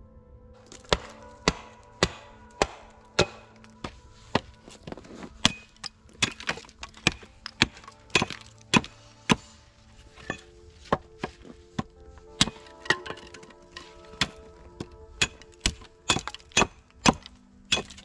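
A quick series of sharp knocks on wood, roughly two a second with short pauses, over steady background music.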